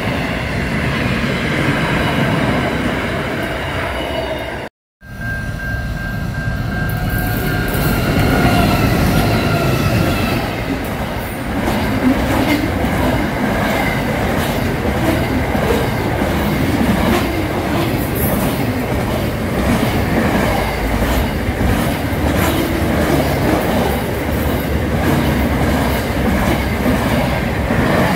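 Intermodal container freight train passing at speed: a steady loud rumble of wagons with wheels clicking over the rail joints. The sound drops out briefly about five seconds in, then the passing train picks up again.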